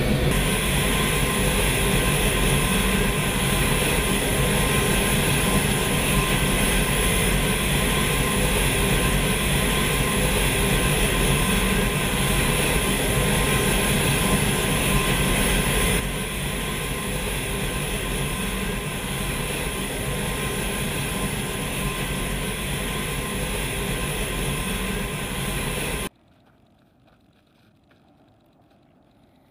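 Turboprop engines of a C-130-type transport aircraft running on the flight line: a loud, steady drone with a thin steady whine. It gets a little quieter at a cut about 16 s in, then falls to near silence about 26 s in.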